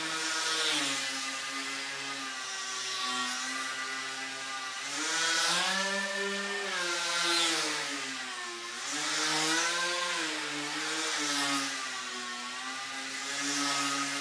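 Tethered indoor RC airplane's motor and propeller whining, its pitch rising and falling with the throttle. The sound swells and fades about every two seconds as the plane circles on its tether.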